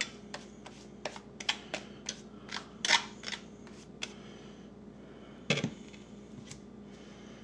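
Steel trowel scraping and tapping thinset mortar onto the back of a ceramic tile, a quick series of clicks and scrapes, as more mortar is added behind a tile that sat low. A single louder knock about five and a half seconds in as the tile goes back down onto the countertop.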